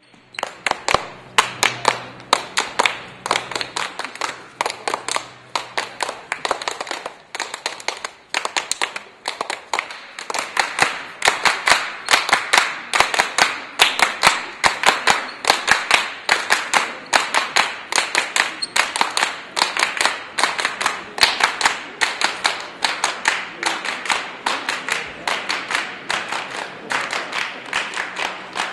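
A group of people clapping their hands together in a steady, even rhythm. The clapping starts suddenly out of quiet.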